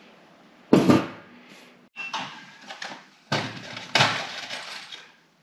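Handling noise from tools and a sheet-metal wall thimble plate being picked up and moved. A sharp knock comes just under a second in, then a few more clattering knocks and bumps near the middle.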